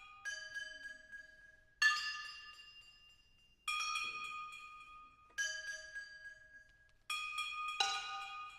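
Solo percussion on struck resonant metal objects: six sharp strikes, roughly one every second and a half to two seconds, each ringing with bright, clanging overtones and fading slowly.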